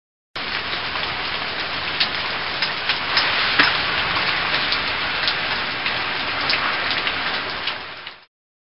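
Steady rain falling and splashing on paving stones, with sharper individual drop hits standing out; it starts suddenly just after the start and cuts off shortly before the end.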